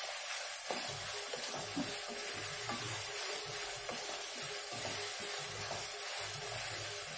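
Chopped small onions (shallots) sizzling in hot sesame oil in a frying pan, a steady hiss, while a spatula stirs and scrapes through them in repeated strokes about every half second. The onions are being fried toward golden brown.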